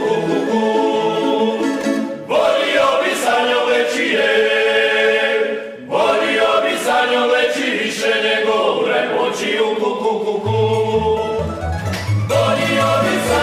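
Tamburica orchestra playing a folk song, plucked tamburicas with men's voices singing together. The music breaks off briefly about two seconds in and again near six seconds, and a deep bass part comes in about ten and a half seconds in.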